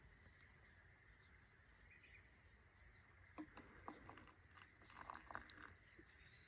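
Faint scattered clicks and crackles over quiet outdoor background hiss, clustered in the second half, with a thin steady high tone throughout.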